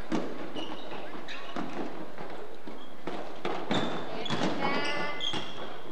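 Basketball game sounds on a hardwood gym floor: the ball bouncing and thudding, a few short high sneaker squeaks, and scattered shouts from the players, with one voice rising near the end.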